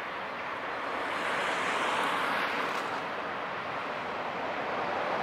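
Inland cargo ship passing close by: a steady rushing noise that grows somewhat louder as it comes nearer.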